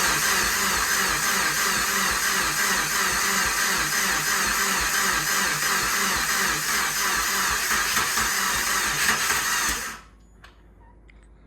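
Starter motor cranking the rebuilt 2017 Subaru WRX flat-four engine for about ten seconds without it firing, with a fast, even pulsing as the engine turns over while fuel is drawn through. The cranking cuts off suddenly near the end.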